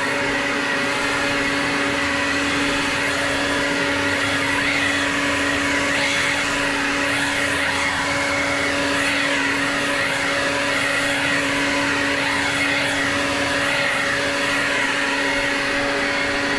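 Leaf blower running at a steady full speed: a constant fan whine over rushing air, as it blows grass clippings off a concrete sidewalk.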